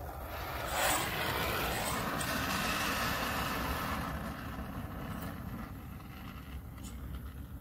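Brazing torch flame hissing as it heats a copper capillary-tube joint on a refrigerator's sealed system. The hiss comes in sharply about a second in, is strongest for the next few seconds and then eases, over a steady low rumble.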